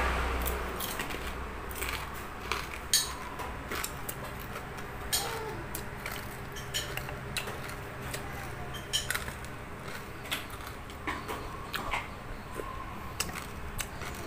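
Chewing of a mouthful of crispy fried food, with scattered sharp clicks and taps of chopsticks against a metal tray and dishes.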